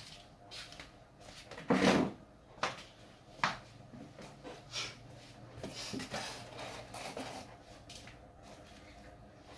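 Irregular knocks and clatter of objects being handled, the loudest a longer clatter about two seconds in, followed by several lighter knocks.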